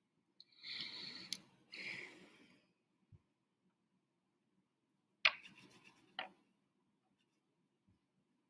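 Faint handling sounds of painting tools: two short rustling scrapes, a soft thud, then a sharp click, a brief rustle and a second click.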